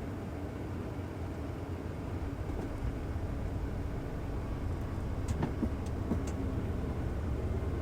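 Steady low rumble inside a Cessna Citation jet's cockpit as it rolls out on the runway after landing, with a few faint clicks a little over halfway through.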